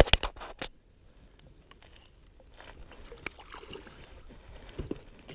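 A few sharp knocks in the first half second, then a hooked pike splashing at the water's surface as it is reeled in, the splashes faint and uneven.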